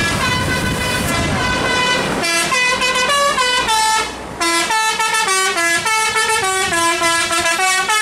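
Tour bus musical air horn ("telolet" horn) playing a quick tune of short stepped notes, with a brief break about four seconds in. It opens with held chord-like tones over a low engine rumble.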